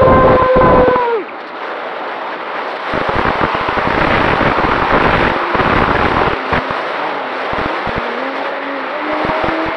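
Electric motor and propeller of a Finwing Traveler model plane whining steadily, then winding down and cutting off about a second in. Wind then rushes and buffets over the onboard camera as the plane glides and banks, louder in the middle, with a faint motor whine rising back in near the end.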